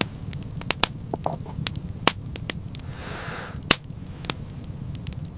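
Wood fire crackling, with sharp irregular pops and snaps over a steady low noise, and a brief hiss about three seconds in.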